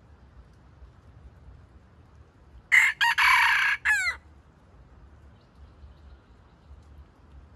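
Red junglefowl rooster crowing once, a single crow of about a second and a half a few seconds in, ending in a falling note.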